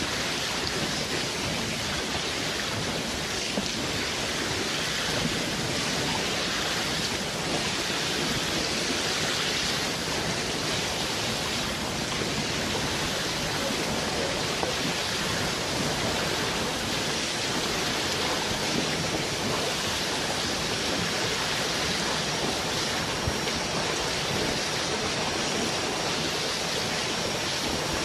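Steady, even water noise: a dense rain-like hiss that holds at one level without breaks.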